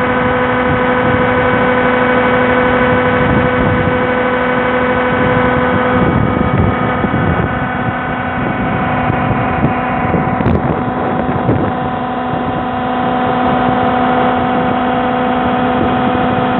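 Ørum slurry mixer running while it churns slurry in a tank: a steady mechanical drone made of several held tones. Around six seconds in, the tones shift and some low rumbling sets in.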